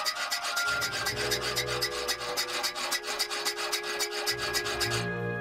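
Round steel file rasping against the ring end of a steel combination wrench clamped in a vise, in rapid, even back-and-forth strokes. The filing stops abruptly near the end.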